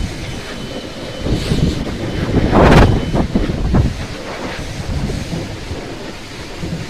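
Pressure-washer spray and splashing water close to the microphone, a continuous rumbling hiss that surges louder for about a second near the middle.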